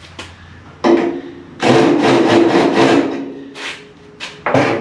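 Rubbing and scraping as a plastic/rubber insert strip is worked by hand into the joint of a 1929 Ford Model A pickup's steel cowl. There is one long scrape with a faint squeak about a second and a half in, and short scrapes near the end.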